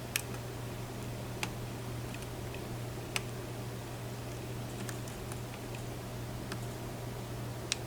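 Lock pick clicking against the pins inside a pin-tumbler challenge lock during single-pin picking: a handful of sharp, irregularly spaced clicks over a steady low hum.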